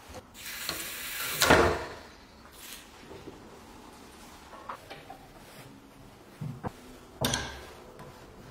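Workshop handling noises: a small metal part is clinked about with pliers and dipped into a tin can of liquid. There is a loud, brief rushing noise about a second and a half in, a few small clicks, and a sharper knock with a short tail near the end.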